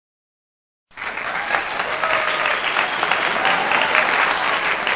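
Crowd applauding and cheering, a dense spread of clapping with a few voices. It starts suddenly about a second in and keeps up at a steady level.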